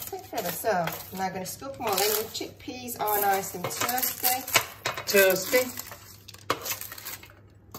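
Clatter of pans and metal utensils, with a few sharp clinks, under voices talking; it goes quieter in the last second or so.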